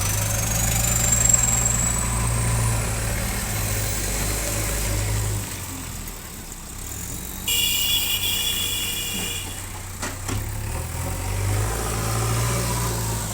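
Diesel engine of a JCB backhoe loader running under load, easing off about halfway through and building up again near the end. A thin rising whine runs through the first few seconds, and a brief high-pitched ringing tone sounds for about two seconds after the middle.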